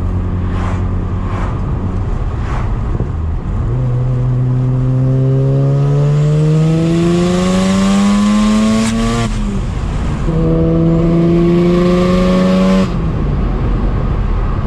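Mazda RX-7's street-ported single-turbo rotary engine cruising, then pulling hard under boost: the engine note climbs steadily with a rising hiss over it and cuts off suddenly about nine seconds in at a shift. A second, shorter pull cuts off just as sharply about three seconds later, and the engine drops back to a steady cruise.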